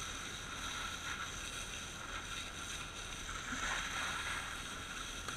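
Fire engine-tanker running steadily at the pump, feeding a hose line that sprays water onto a smouldering fire: an even mechanical drone with a steady hiss.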